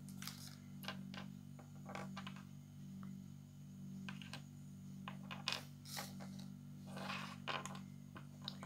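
Small plastic toy parts from a Kinder Surprise Natoons figure being handled and pressed together, giving faint scattered clicks and brief rustles over a steady low hum.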